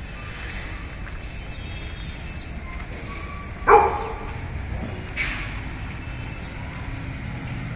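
A dog barks once, short and loud, about halfway through, with a second, fainter bark about a second and a half later, over a steady low rumble.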